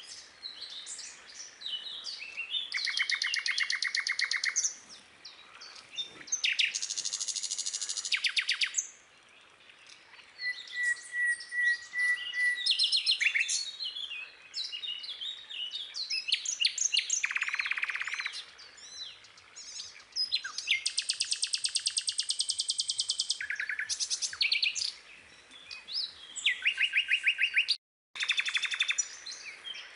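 Several songbirds singing and chirping, with fast trills and rapid repeated chirps overlapping one another. The sound cuts out completely for a moment near the end.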